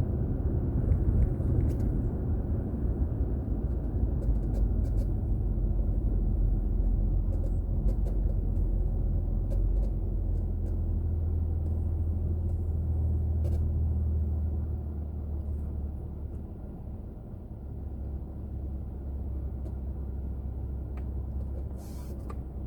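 Car road noise picked up by a dashboard camera: a steady low rumble of tyres and engine. It grows noticeably quieter about fifteen seconds in.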